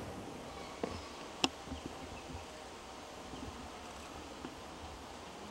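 Quiet outdoor ambience with a faint steady buzz, broken by two sharp clicks about a second and a second and a half in, the second louder.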